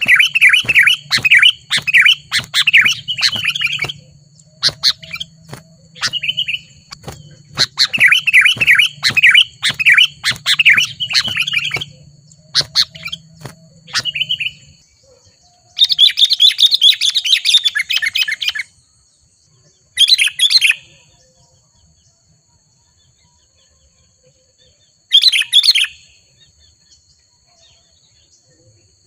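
Sooty-headed bulbul (kutilang) singing in loud bursts of rapid, bubbly chattering notes, several phrases of a few seconds each with pauses between, the last ones shorter.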